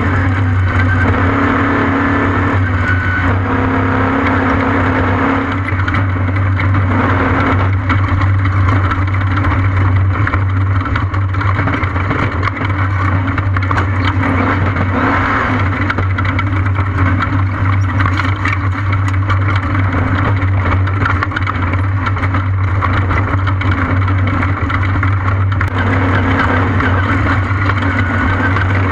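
Off-road race vehicle's engine running under steady throttle, a constant low drone over a continuous rushing noise, with little change in pitch.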